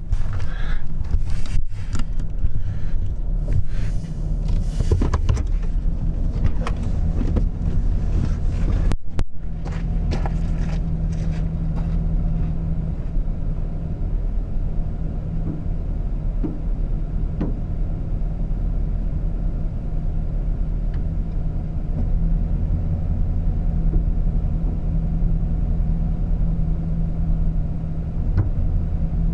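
Truck driving, heard through a camera suction-mounted on the outside of the vehicle: a steady low engine and road hum with rushing noise. Scattered knocks and rattles come in the first dozen seconds.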